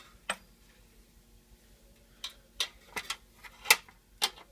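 Irregular sharp clicks and taps of pliers and pins against the movement of an antique English tall clock as the pins holding the dial are pulled out: one click early, then a quick cluster in the second half, the loudest near the end.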